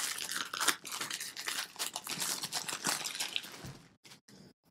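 Clear plastic shrink-wrap film being peeled off a smartphone box and crinkled, a dense crackling that dies away about four seconds in.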